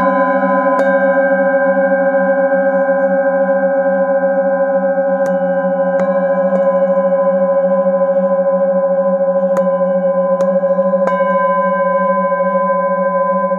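Hand-held metal singing bowl sung by circling a mallet around its rim: a steady, layered ringing drone of several held tones with a fast, even wobble, and light clicks of the mallet against the rim now and then.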